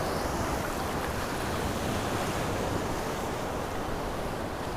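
Surf washing steadily, with wind buffeting the microphone.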